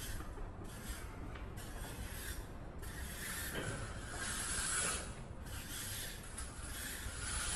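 A run of scraping strokes, uneven in length, with short gaps between them.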